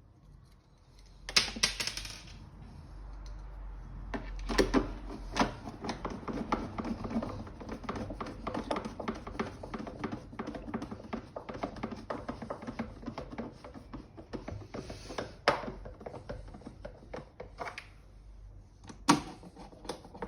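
Plastic vacuum cleaner housing and motor parts being handled and fitted together by hand: a long run of irregular small clicks and knocks, with a few louder clatters.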